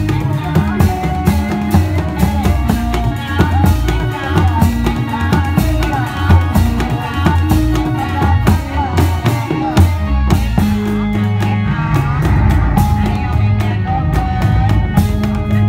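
Loud band music accompanying a Reog dance, with a driving drum beat, a stepping bass line and a melody on top.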